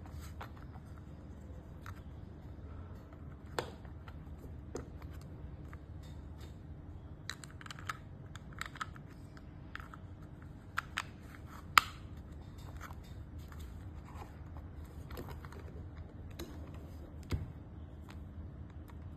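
Scattered small clicks and taps of hands and tools working on the parts of a remote-control car, over a low steady hum. The sharpest click comes about twelve seconds in.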